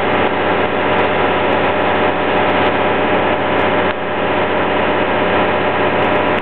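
An engine running steadily at idle, an unbroken hum with a few steady tones under a dense noisy layer.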